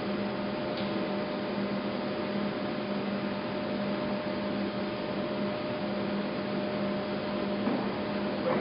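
Monarch Model 1610 engine lathe running steadily under power, a continuous motor and gearbox hum with a steady whine in it.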